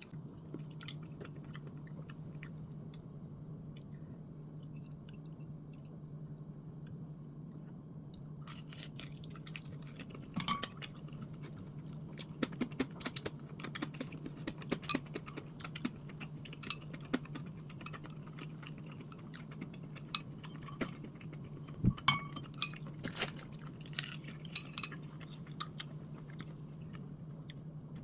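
A person eating: chewing, with scattered sharp clinks of cutlery against dishes from about a third of the way in, over a steady low electrical hum.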